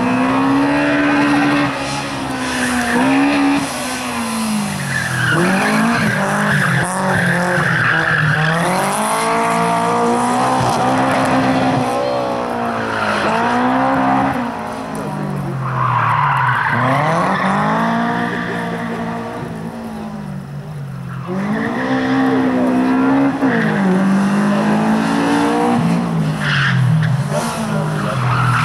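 A Honda Civic hatchback's engine revving hard and dropping back again and again as it is driven flat out around a tight course, with tyres squealing through several of the turns.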